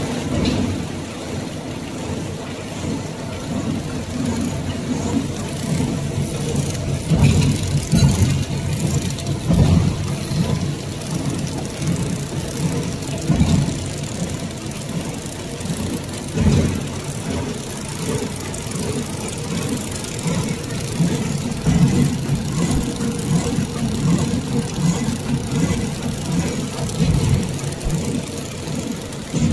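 Horizontal flow-wrap packing machine running, its conveyor and sealing mechanism giving a steady mechanical hum with a louder thump now and then.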